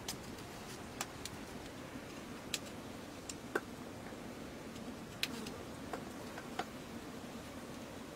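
Irregular sharp clicks of a knife cutting through raw cucumber and potatoes held in the hand, about ten in all, over a low steady background hum.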